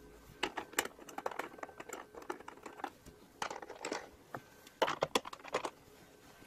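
Small hardware being handled by hand: irregular light clicks and rustling in short clusters as washers and bolts are picked up and fitted.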